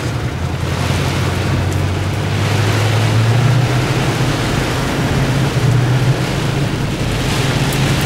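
Heavy rain beating on a moving car's windshield and body, heard from inside the cabin, over the low hum of the car's engine, which rises and falls a little in pitch as it drives.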